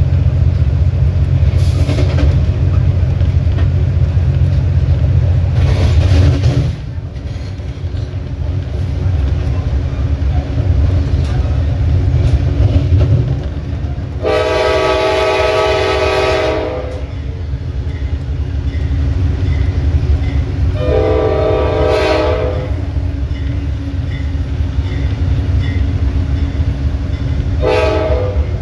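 Nathan K5LA five-chime horn on a GE Dash 8-32BWH locomotive sounding two long blasts and a short one, the opening of a grade-crossing signal. Under it the locomotive's diesel engine drones loudly, dropping off about a quarter of the way in.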